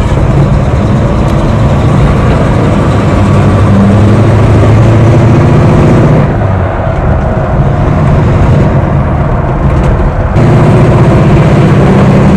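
Simca Chambord's flathead V8 pulling the car away down a street, heard from outside the body along with tyre and wind noise. The sound eases about six seconds in and comes back up abruptly near the end.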